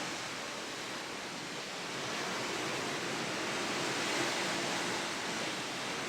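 Steady rushing of wind and sea water, heard from a cruise ship's balcony.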